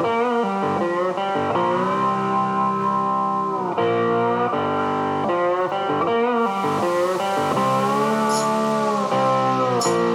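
Background guitar music, with long held notes that bend in pitch.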